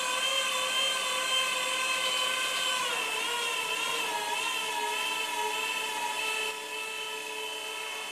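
Crown order picker's electric hydraulic pump motor running the mast, with the operator platform raised high: a steady whine that drops slightly in pitch and wavers about three seconds in, then eases a little in level near the end.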